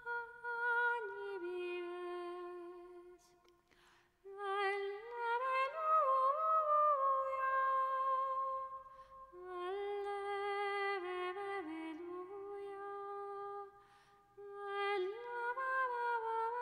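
A solo female voice singing Latin Gregorian chant unaccompanied: the melismatic 'alleluia, alleluia, alleluia' at the close of an introit. It is a single melodic line of long, flowing notes, with a brief pause for breath about four seconds in and another near fourteen seconds.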